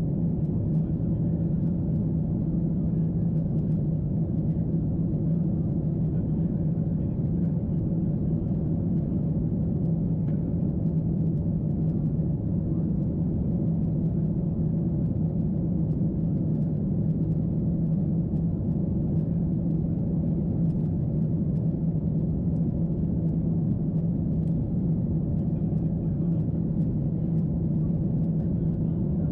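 Steady in-flight cabin drone of a Boeing 747-8: airflow and engine noise heard from a seat by the wing, with a constant low hum running through it and no change in pitch or level.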